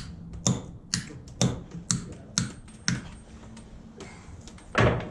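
Sharp metal-on-metal knocks from tools working on a streetcar truck's brake rigging during a brake shoe change: six in a row about two a second, then a heavier clank near the end.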